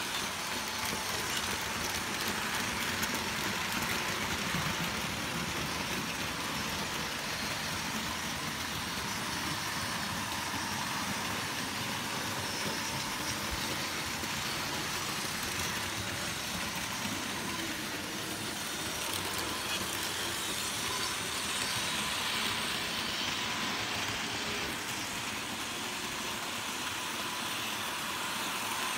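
Märklin HO-scale BR 216 diesel locomotive model pulling a long train of freight cars over metal track: a steady rolling noise of the motor and many wheels.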